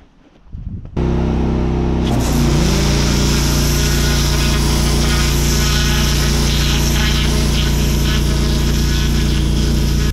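Pressure washer kicking in about a second in, then running steadily: the pump's buzzing hum under the hiss of the water jet on block paving. The hum's pitch shifts briefly and settles as it comes up to pressure, and it cuts out abruptly at the very end.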